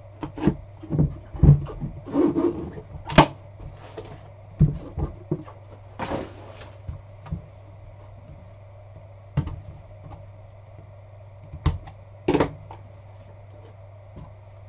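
Cardboard trading-card box being handled and opened by hand: irregular knocks and taps on the box, with a few short bouts of cardboard rubbing and sliding. A steady low hum lies underneath.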